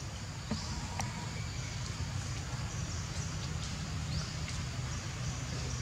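Outdoor ambience: a steady low rumble with short, faint bird chirps scattered through it and a couple of light clicks about half a second and a second in.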